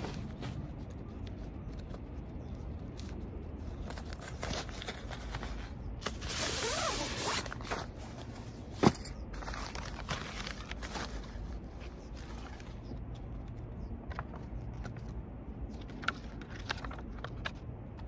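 Nylon camping-gear bags and stuff sacks rustling and scraping as they are handled and unpacked, with a louder, longer scraping pull about six seconds in and a single sharp click about nine seconds in. A paper instruction sheet rustles lightly near the end.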